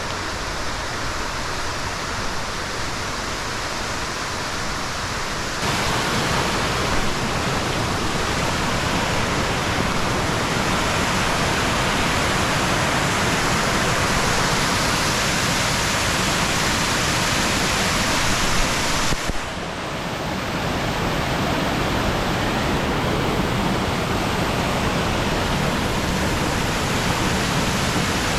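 Waterfall rushing: a loud, steady hiss of falling water that gets louder about six seconds in and dips briefly around twenty seconds in.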